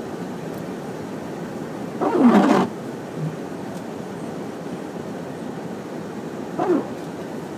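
Steady car cabin noise while driving slowly through deep snow. About two seconds in, a loud voice-like sound falls in pitch, and near the end a shorter, fainter one does the same.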